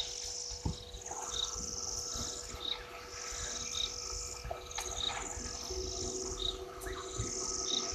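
Wild chorus of insects and birds: a high buzzing phrase about a second long repeats roughly every two seconds, with short high chirps in between, over a faint steady hum.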